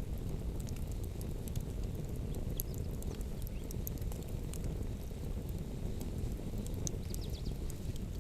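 Wood campfire crackling, with scattered sharp pops and snaps over a steady low rumble of wind on the microphone.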